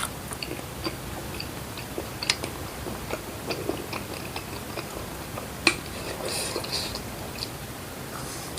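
A person chewing and eating food, with scattered small wet clicks and smacks of the mouth.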